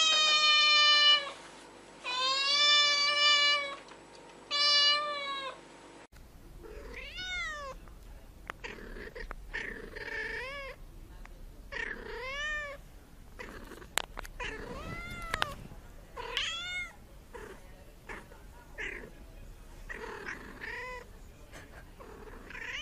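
A young black-and-white kitten meows three times, long and loud. About six seconds in, a white cat with dark patches takes over with a dozen or so shorter, quieter meows that rise and fall in pitch, about one a second.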